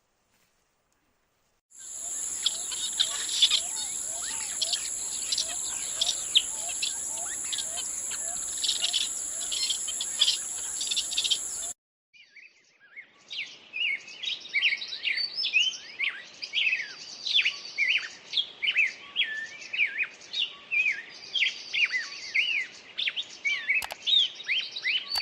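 Small birds chirping busily, many quick high chirps overlapping, in two separate stretches. The first starts about two seconds in, with a steady high-pitched whine and a lower repeated chirp beneath it, and cuts off abruptly about halfway through. The second follows after a short gap and is made of denser, sharper chirps.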